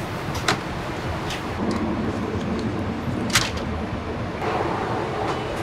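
Steady rushing noise of an airliner cabin in flight, with a few small sharp clicks and handling knocks; the loudest click comes a little past three seconds in.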